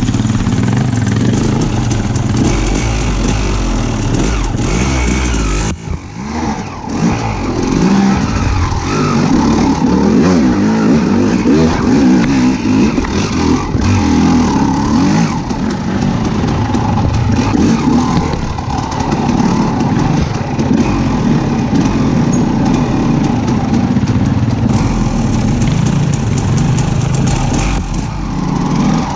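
A motor vehicle engine running, with a brief drop in level about six seconds in.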